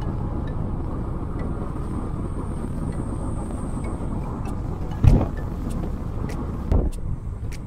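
Steady engine and road noise inside the cabin of a Fiat 500 on the move. Two short thumps come about five seconds and just under seven seconds in, and light ticks about every half second start in the second half.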